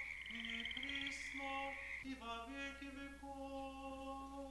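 Old Believer congregation singing liturgical chant, slow held notes stepping between a few pitches. A steady high trill runs underneath and stops about two seconds in.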